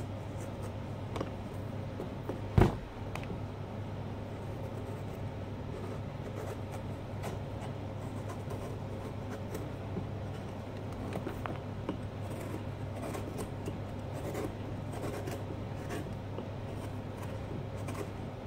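Hand carving tool scraping and cutting into a pumpkin's rind in many short, light strokes, over a steady low hum. One loud sharp knock about two and a half seconds in.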